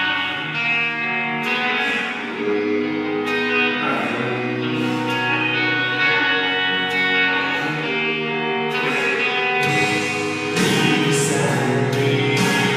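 Music led by guitar, with held chords and a steady, full sound that grows fuller about ten seconds in.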